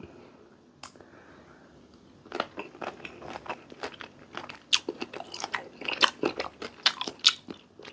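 Close-up chewing of a mouthful of crunchy raw fruit coated in shrimp-paste sauce: a quiet start, then a rapid, irregular run of crunches from about two and a half seconds in.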